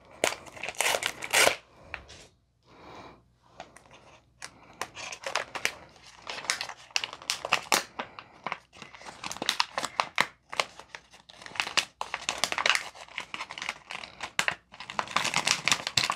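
A paper toolkit pouch being torn open and crinkled by hand: repeated bouts of ripping and crackling rustle, broken by short pauses.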